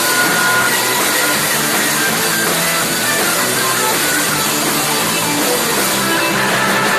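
Live rock band playing loud, with distorted electric guitar and drums, heard through a phone's microphone.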